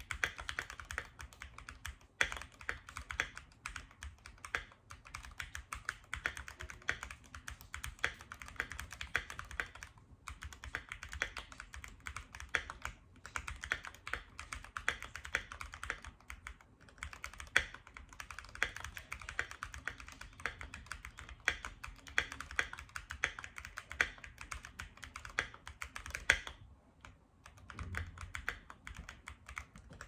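Steady fast typing on a Keychron Q1 custom mechanical keyboard with a brass plate, lubed Tealio V2 linear switches and MT3 keycaps: a dense stream of key clacks broken by a few brief pauses.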